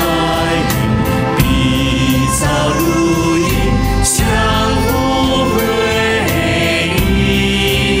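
A choral song in Chinese: many voices singing together over instrumental backing with a steady beat.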